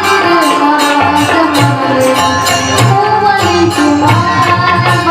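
Live stage music: a melody line over a steady percussion beat.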